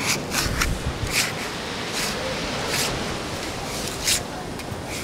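Plastic sand scoop scraping packed damp sand on the side of a sand castle: a series of short, irregular scrapes.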